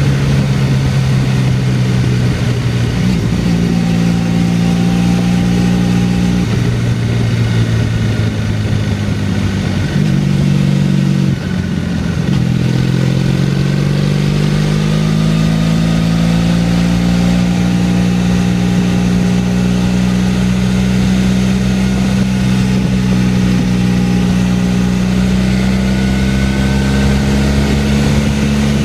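Motorcycle engine running at road speed, heard from the rider's seat with wind rush. Its pitch breaks and drops several times in the first dozen seconds as the rider changes gear, then climbs slowly and steadily as the bike accelerates.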